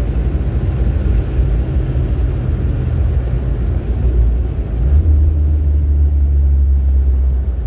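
Turbo-diesel vehicle engine and road noise heard from inside the cab while driving: a steady low rumble, with a deeper, louder drone coming in about five seconds in.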